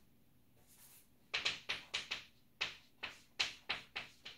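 Chalk writing on a blackboard: a quick run of short taps and scratches as the chalk strokes out symbols, starting about a second and a half in, about a dozen strokes in three seconds.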